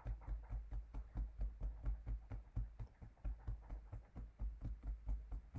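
Fingertips tapping an EFT point on the body through clothing: a fast, even patter of soft, muffled thuds, about five a second.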